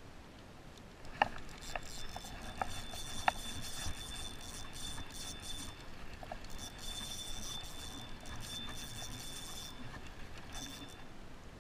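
Spinning reel being cranked against a hooked fish, the rod bent under load: the reel whirs in stretches that start and stop, with a few sharp clicks in the first few seconds.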